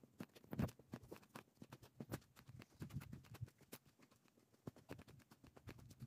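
Faint footsteps on a dirt trail strewn with dry leaves: many small, irregular clicks and scuffs with soft low thuds.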